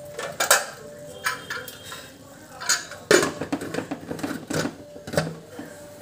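Pressure cooker lid clanking against the metal pot as it is picked up and fitted on: a string of sharp metal clinks and clatters, the loudest about three seconds in.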